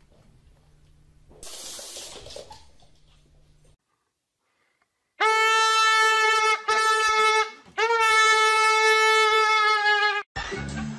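A loud, steady, horn-like tone held at one pitch, sounded three times with short breaks, the middle blast the shortest; before it a faint hiss and a moment of silence.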